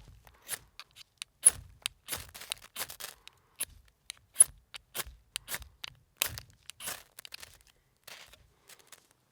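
Irregular sharp snaps and crackles of dry wood, about two or three a second, several of them loud.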